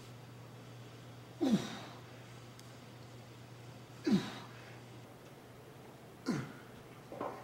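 A man grunting with effort as he strains through the reps of a lift, four short forceful exhaled grunts that drop in pitch, about every two seconds. A steady low hum runs underneath.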